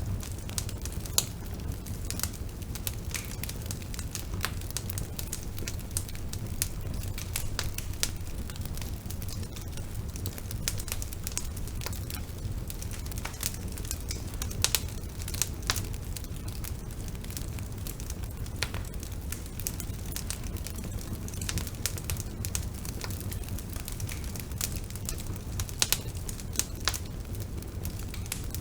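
Bonfire burning with a steady low rumble and frequent irregular crackles and pops.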